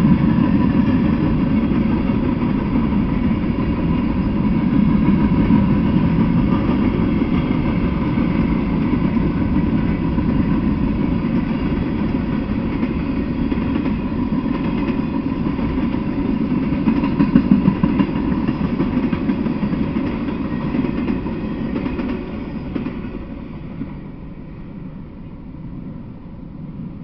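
Freight train of covered hoppers and tank cars rolling past, a steady rumble of steel wheels on rail with a few louder clacks about seventeen seconds in. The rumble fades away near the end as the last car goes by.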